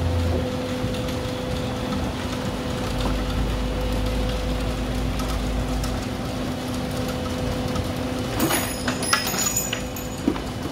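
Handheld concrete vibrator running with a steady hum, its shaft down in freshly poured concrete inside the wall forms to consolidate it. A few knocks and rattles come near the end.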